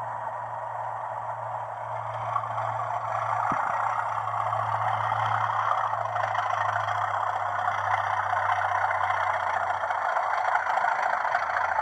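Sound chip of a Hornby Class 37 TTS model locomotive playing a Class 37 diesel engine sound through its small onboard speaker as the model pulls away. There is a steady low hum, and the engine sound grows louder after about two seconds.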